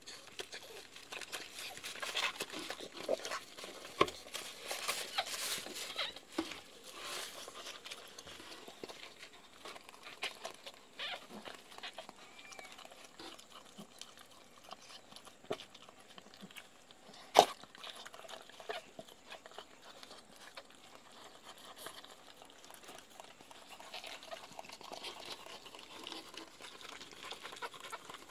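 Mother dog licking and nuzzling a newborn puppy, with wet licking and rustling of cloth bedding. The sounds are busiest in the first several seconds and sparser later, and a single sharp click comes about seventeen seconds in.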